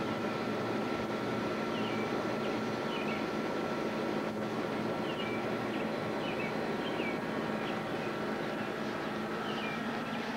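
Steady mechanical background hum, with small birds giving short high chirps every second or so over it.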